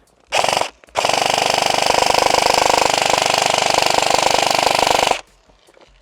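Airsoft gun firing on full auto: a short burst, then a long continuous burst of about four seconds of rapid, evenly spaced shots that cuts off suddenly.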